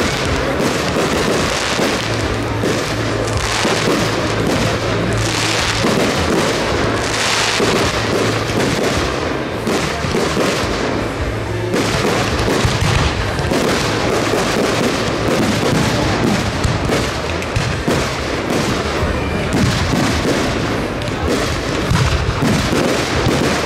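A fireworks display: aerial shells launching and bursting in a rapid, irregular series of bangs, with music playing throughout.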